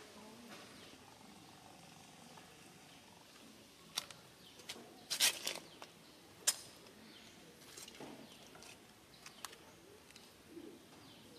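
Low background noise broken by a handful of sharp clicks, most of them bunched together between about four and six and a half seconds in.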